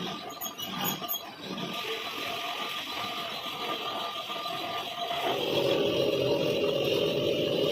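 Metal-working lathe running while thread-cutting a cast iron nut; the sound turns louder and rougher about five seconds in.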